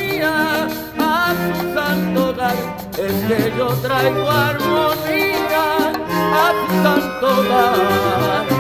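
A man singing with vibrato over a live Latin band playing Puerto Rican Christmas music, with upright bass and horns.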